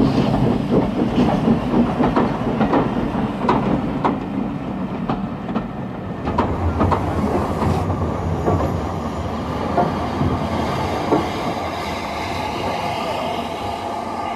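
LMS Fairburn 2-6-4 tank steam locomotive moving over pointwork, with a string of clanks and clicks from its wheels on the rail joints. After about six seconds this settles into a steadier low rumble.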